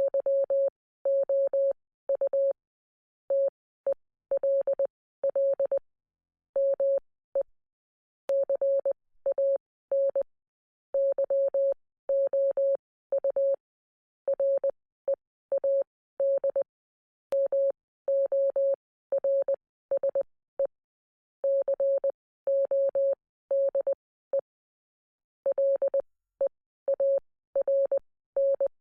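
Morse code sent as a single steady electronic beep, keyed on and off in short and long beeps (dots and dashes) grouped into letters and words, with silence between the groups.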